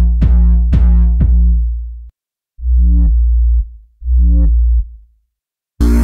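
Synthesizer bass presets from UVI Falcon's Pulsar library being auditioned. First the 'Kick Sub' preset: a deep sub bass with kick-drum attacks about twice a second, ending about 2 s in. Then two separate short bass notes, and a new, fuller bass sound begins near the end.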